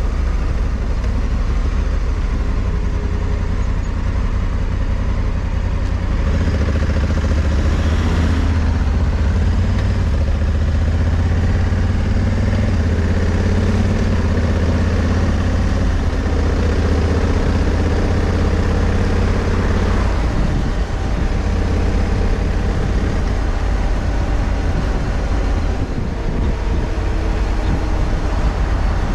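Honda Africa Twin CRF1100L's parallel-twin engine running under way at town speeds, with wind noise rumbling over the microphone. The engine note rises and falls as the speed changes, and a brief whoosh passes about eight seconds in.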